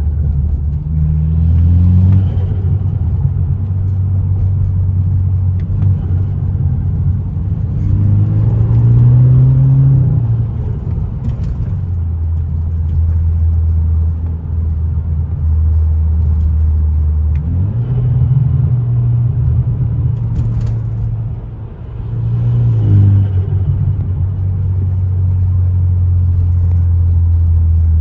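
BMW F30 328i's turbocharged four-cylinder engine under way: a steady low drone at cruise, its pitch rising several times as the car accelerates.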